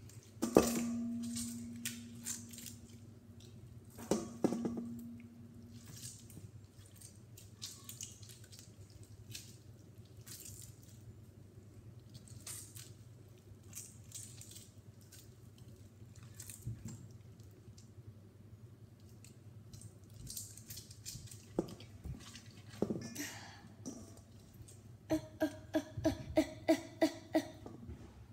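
Sticky slime being squished and pulled by hand in a stainless steel mixing bowl, with small wet clicks. The metal bowl is knocked and rings briefly about half a second in and again about four seconds in. Near the end comes a quick, even run of about ten taps with a ringing pitch.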